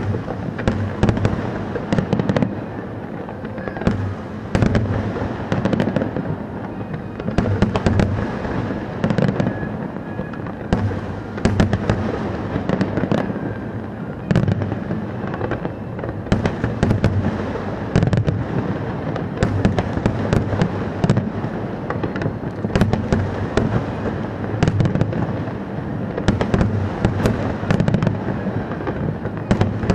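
Fireworks display: a dense, continuous run of sharp bangs and crackles over a steady low rumble.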